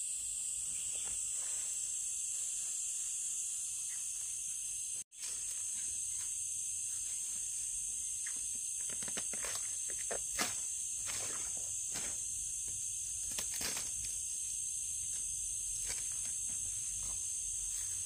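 Steady high-pitched drone of insects, with light scattered clicks and rustles over it and a sharper click about ten seconds in. The sound cuts out for an instant about five seconds in.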